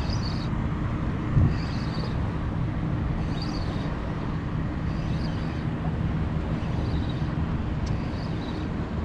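Wind buffeting the microphone, with a faint steady low hum underneath and a soft hiss that comes back about every second and a half.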